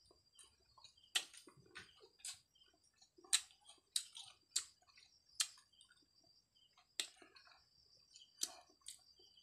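Close-up chewing of crisp, unripe Indian mango: a dozen or so sharp crunches and mouth smacks at irregular intervals.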